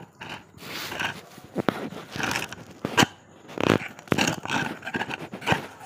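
A dog breathing close to the microphone in short, irregular breathy bursts, with a few small clicks.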